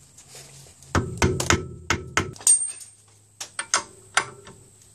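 Hammer blows on a metal tool held against the staked locking notch of a Mercedes SLK 230 rear hub nut, knocking the notch back out so the nut can be undone. There is a quick run of about seven sharp strikes, a pause, then four more, each with a short metallic ring.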